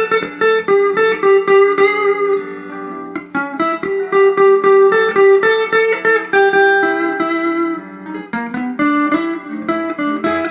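Fender Telecaster electric guitar on its neck pickup, played lead through an amplifier: a quick run of single picked notes with a few longer held notes, picked close to the bridge.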